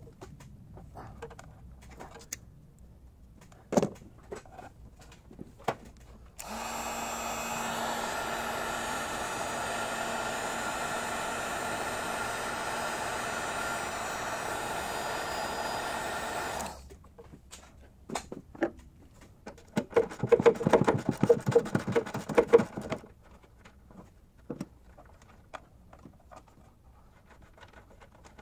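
Electric heat gun blowing steadily for about ten seconds, switched on and off abruptly, shrinking the heat-shrink tubing on crimped ring terminals. A few seconds later comes a quick run of loud metallic clicks from a ratchet wrench turning the ground bolt, with light handling clicks around it.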